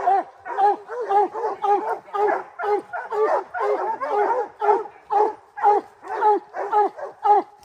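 Bear hounds barking steadily at a treed black bear, an even run of about three barks a second: the tree bark that says the bear is up a tree.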